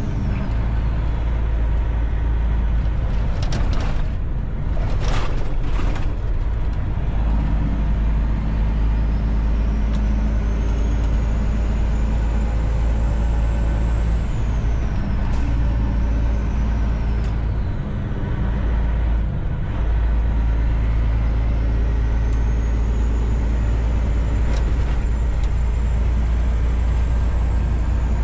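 Inside a semi truck's cab: the diesel engine running and road noise while driving over a rough, broken highway surface, with a few sharp knocks or rattles about four to six seconds in. A faint high whine rises and falls twice.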